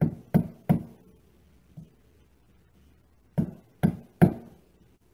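A mallet tapping a lock nut down into the end of a brass tube clamped upright in a bench vise, fitting it just below the rim. Three quick knocks at the start, then three more about three and a half seconds in.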